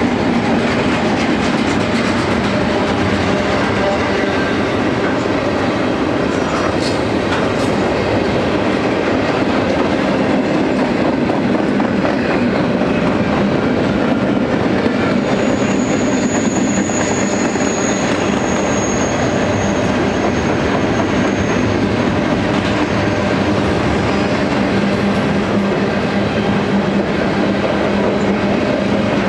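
Double-stack container well cars of a freight train rolling past: a steady loud rumble and clatter of steel wheels on rail. About halfway through, a thin high wheel squeal sounds for several seconds.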